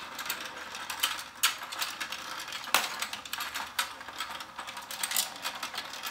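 Let's Go Fishing game's motorized pond running: its gears click and rattle steadily as the plastic fish turn and open and close their mouths. A few sharper plastic clacks stand out, about one and a half seconds in and again near three seconds.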